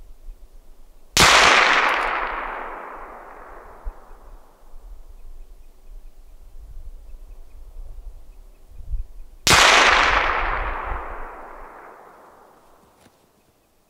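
Two rifle shots about eight seconds apart, each a sharp crack followed by a long echo that dies away over a few seconds.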